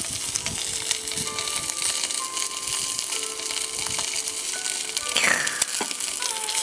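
Rib meat sizzling and crackling in hot oil in a cast iron skillet, frying just after being laid in the pan.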